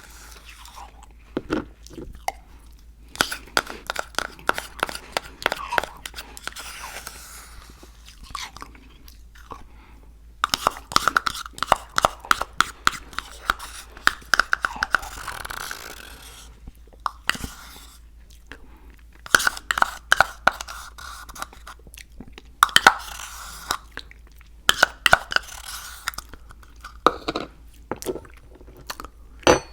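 Close-miked chewing of crunchy Icee cookies: bouts of crisp crunching a few seconds long, with short pauses between mouthfuls.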